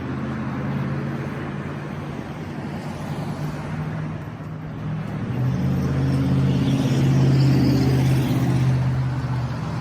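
Motor vehicle engine running with a steady low hum, which grows louder about halfway through as the traffic noise swells.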